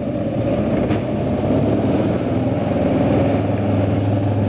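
Motorbike engine running steadily under way, building up in loudness over the first second or so, then holding steady.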